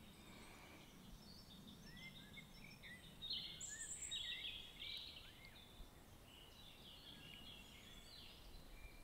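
Faint birdsong: many short chirps and quick rising-and-falling whistles, busiest about three to five seconds in, over a soft low hum.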